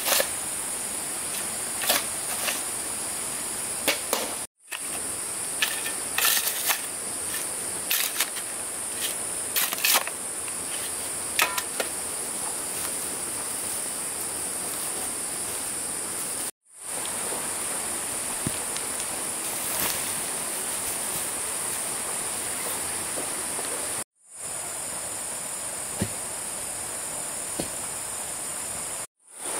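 Insects droning at a steady high pitch, with scattered sharp knocks and clicks over the first dozen seconds. The sound drops out briefly four times.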